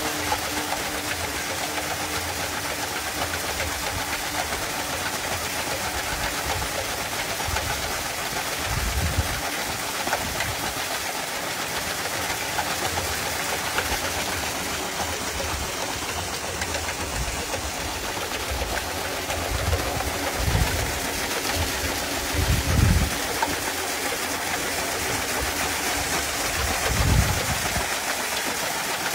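Steady rushing and splashing of a water jet striking a spinning wheel of steel bowls, with the rig's pulleys and belt drive running. A few dull low thumps come through, the strongest in the last third.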